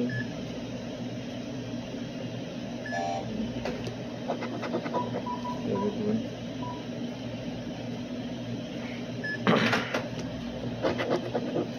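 A coin scratching the coating off a scratch-off lottery ticket in short rasping strokes, loudest a little before the end. Underneath runs a steady low hum, with a few short beeps.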